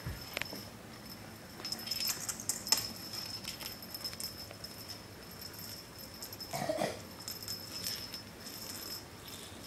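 Light rattling and jingling with scattered sharp taps as a kitten plays with a feather wand toy on a hardwood floor; the taps and rattles come thickest a couple of seconds in. A brief pitched squeak comes about seven seconds in.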